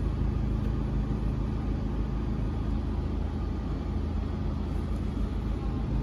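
A vehicle's engine idling, heard from inside the cabin as a steady low hum.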